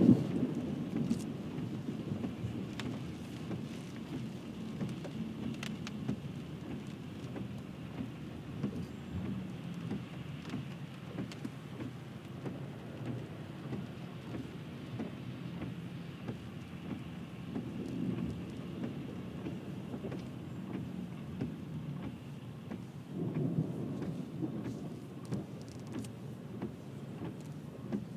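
Rain pattering on a car's roof and windshield, heard from inside the car, with low thunder rumbles that are loudest at the start and swell again about eighteen and twenty-three seconds in.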